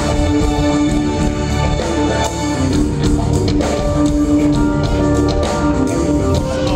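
Progressive rock band playing: sustained guitar notes over a drum kit.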